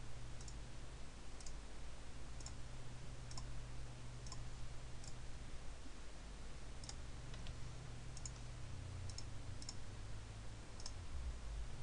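Computer mouse clicking: about a dozen single, faint clicks at uneven intervals, over a low steady hum.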